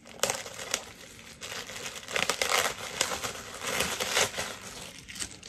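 Clear plastic glove packaging crinkling and crackling as it is pulled open and a pair of football gloves is drawn out of it, with sharp crackles and the densest rustling in the middle of the stretch.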